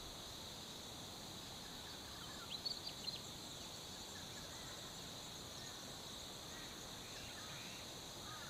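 Steady high-pitched drone of insects, with a bird's brief run of sharp chirps about two and a half to three seconds in.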